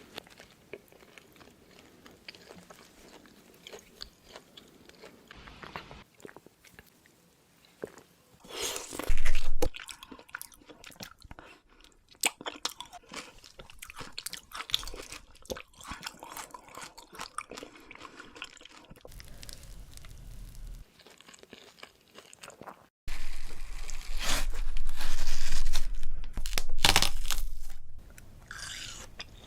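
Close-miked ASMR eating: crunchy bites and chewing, with a loud burst about nine seconds in and a longer loud stretch of biting and chewing in the last third.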